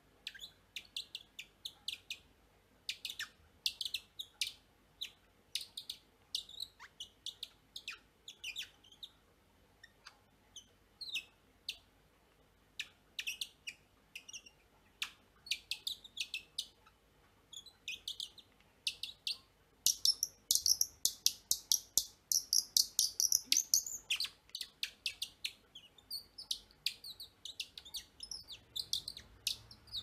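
Wooden twist-type bird call being turned back and forth, giving runs of short, squeaky chirps with a louder, denser flurry about two-thirds of the way through.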